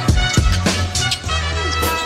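Background music with a steady drum beat and bass: an upbeat Japanese pop song, here between its sung lines.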